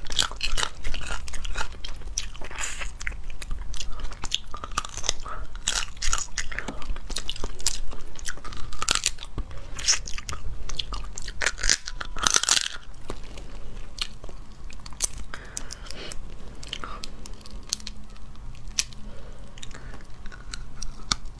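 Close-up crunching and cracking of cooked crayfish shells being broken open by hand, mixed with chewing and mouth sounds, in irregular crackly clusters that thin out in the second half.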